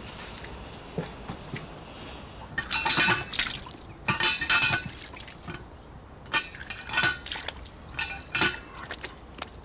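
Water splashing in several short, separate splashes at uneven intervals.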